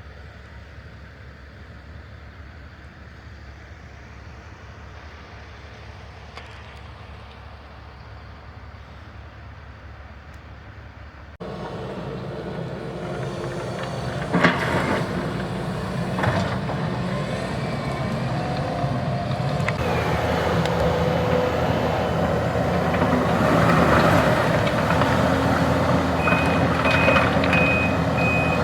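Heavy truck engine running, louder after about eleven seconds, with a couple of sharp clanks. Near the end its reversing beeper starts, beeping steadily as the truck backs up.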